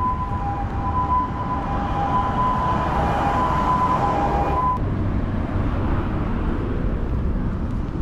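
City street traffic: a steady rumble, with a vehicle passing about three to four seconds in. Over it runs a steady two-tone electronic signal, which cuts off suddenly a little before five seconds in.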